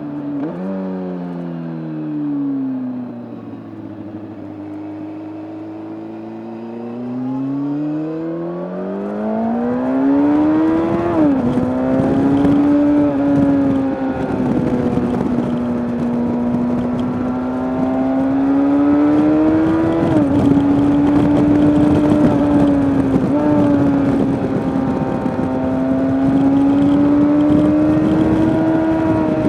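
A 2003 Kawasaki ZX6R's inline-four engine heard from the rider's seat. It blips up, falls back to a low rumble for a few seconds, then revs up hard to an upshift about a third of the way in. It settles into a steady high-revving drone, with two brief dips later on. Wind rush builds as speed rises.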